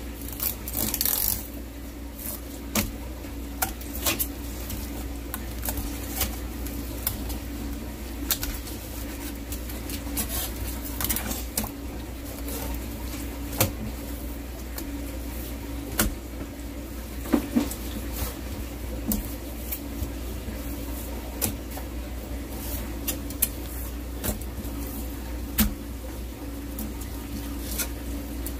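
A knife tapping and clicking against a plastic cutting board as a flatfish is filleted, in scattered sharp ticks every second or two, over a steady low machine hum.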